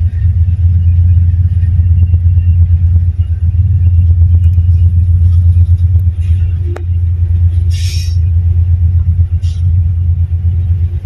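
Tugboat's diesel engines running under manoeuvring power, a loud steady low rumble.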